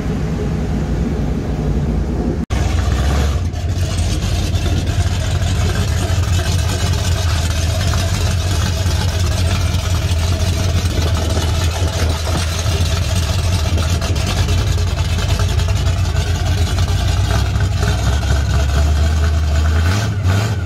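Engine of a huge lifted truck running with a deep, steady note as it drives slowly in.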